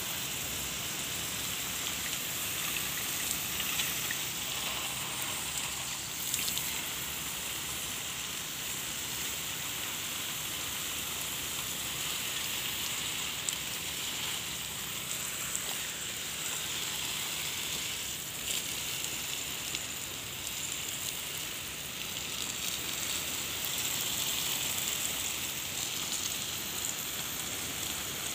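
A strong jet of watering water spraying onto soil and pineapple plants: a steady hiss and patter like heavy rain.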